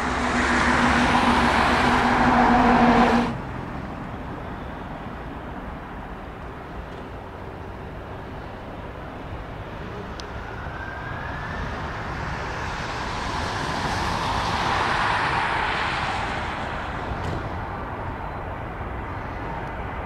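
Airbus A321 jet engines running at taxi power, a steady whine and rumble. The loud, tone-laden engine noise cuts off abruptly about three seconds in, giving way to a quieter engine hum that swells and fades again in the second half as the airliner turns toward the listener.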